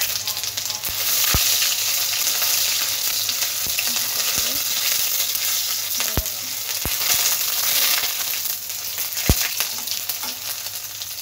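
Panch phoron, cumin seeds, bay leaf and dried red chili sizzling in hot oil in a metal kadai, getting louder about a second in, while a spatula stirs and scrapes them. A few sharp clicks stand out from the sizzle.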